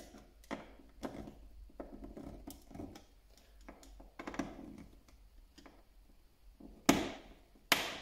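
Small clicks and scrapes of hand work on a switch insert in a flush wall box while it is screwed tight, then two sharp knocks less than a second apart near the end.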